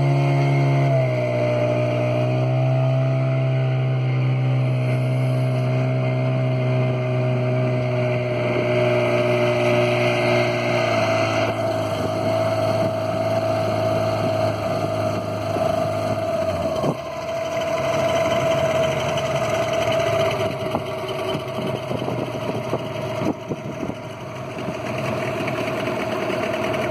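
Outboard motors of a small fishing boat running steadily under way, a continuous engine drone over the rush of water.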